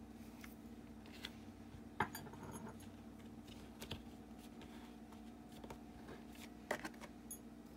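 Faint clicks and taps of a clear acrylic stamping block and clear stamp being pressed and handled on cardstock, with one sharper click about two seconds in, over a low steady hum.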